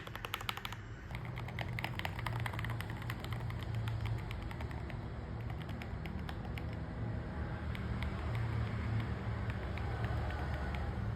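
Akko BubuDudu mechanical keyboard being typed on: a quick run of key clacks that thins out a little past the middle. A steady low hum runs underneath.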